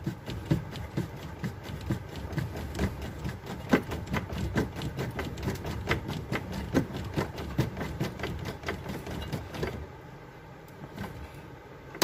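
Quick run of clicks and knocks, about four a second, as a hand works at and tightens a washing machine's plastic drain valve assembly. The clicking stops about ten seconds in, and a low steady hum lies under it.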